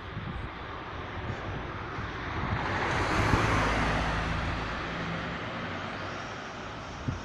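Fiat 500 car driving past on an asphalt road: engine and tyre noise swell to a peak about three seconds in, then fade as it drives away.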